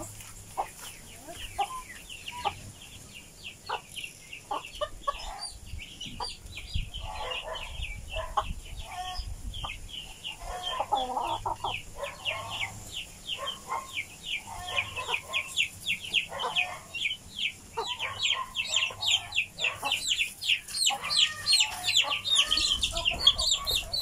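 Many chicks peeping in short falling notes, thickening and growing louder in the second half, with a hen clucking at intervals among them.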